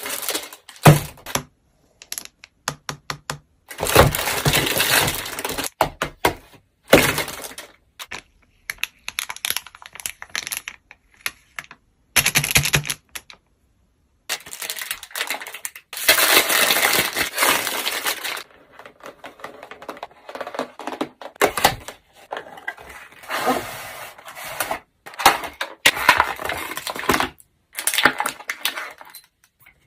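Packaging being handled and opened by hand: irregular bursts of crinkling, crackling and tearing, with sharp clicks and small knocks between them.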